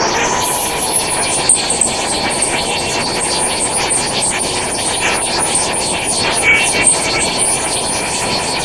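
Angle grinder grinding steel, running steadily under load with a constant hissing, whining sound.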